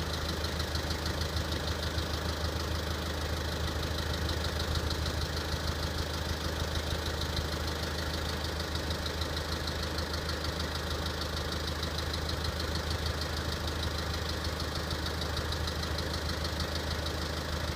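VW Passat B6's CBAB 2.0 TDI four-cylinder diesel idling cold, with a steady, fast, ringing knock running through it whose cause is unknown.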